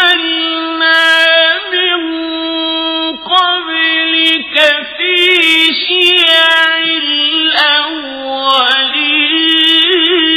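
A man's high voice reciting the Quran in a slow, melodic chant, holding long notes that step up and down in pitch with wavering ornaments and brief breaths between phrases.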